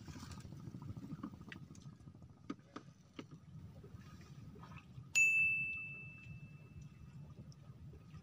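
A single bright, bell-like ding about five seconds in, ringing and fading over a second or two. Before it come a few light taps over faint low background noise.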